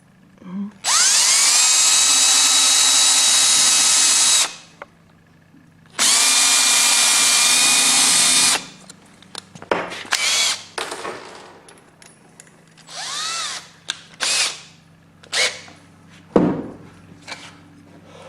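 Power drill boring the drain-plug hole through the boat's wooden hull: two long runs of a few seconds each, the motor's whine rising as it spins up, then several short bursts that spin up and wind down. A single sharp knock comes near the end.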